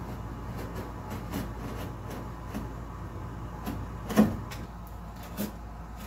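Utility knife blade scraping and clicking along a cured fibreglass-and-epoxy edge: a run of light, irregular clicks, with a sharp knock about four seconds in and a smaller one a second later, over a steady low hum.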